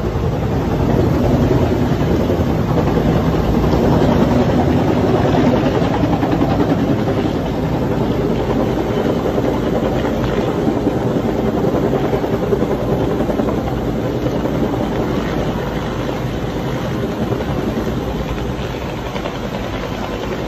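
Firefighting helicopter hovering low to pick up water from a swimming pool, its rotor and engine running loudly and steadily, a little louder a few seconds in and easing off toward the end.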